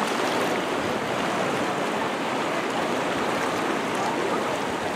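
Sea water washing against rocks at the shoreline, a steady, even rush of water noise.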